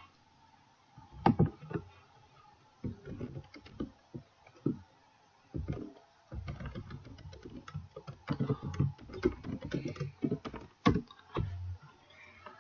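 Computer keyboard typing: irregular runs of keystrokes with short pauses between them, a few presses louder than the rest.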